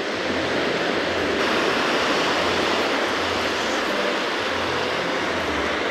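Steady rush of small surf washing onto a sandy beach.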